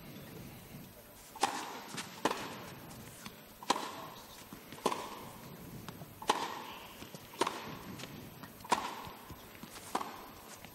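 Tennis ball being struck back and forth in a rally on an indoor court: a string of sharp pops about every second and a quarter, each with a short echo.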